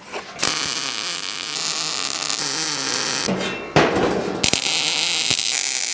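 MIG welder arc crackling and hissing steadily as it welds a steel charcoal chimney starter, breaking off briefly a little after three seconds in and striking up again.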